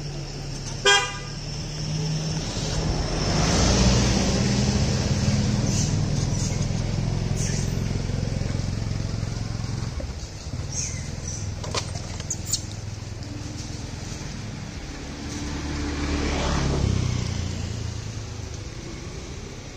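Road traffic passing close by: engines and tyre noise swell up and fade away twice, once around four seconds in and again around sixteen seconds in. About a second in, a short horn toot is the loudest sound.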